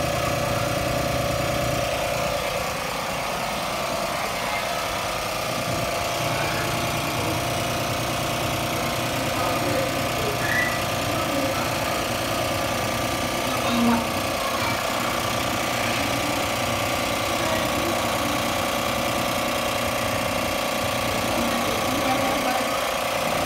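A motor running steadily, giving a constant, even hum.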